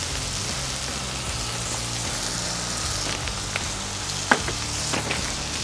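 Beef smash burger patties with thin-sliced onions pressed in, sizzling in oil on a hot flat-top griddle as a steady hiss. A few sharp pops come in during the second half.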